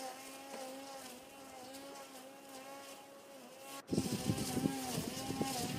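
Cordless electric grass trimmer with a nylon cutting line running, heard from a distance as a steady whine that wavers slightly in pitch while it cuts grass. After a brief dropout about four seconds in, a louder rough crackling noise joins the whine.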